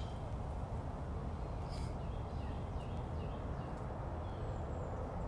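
Outdoor background: a steady low rumble, with a few faint, short, falling chirps around the middle and a brief click about two seconds in.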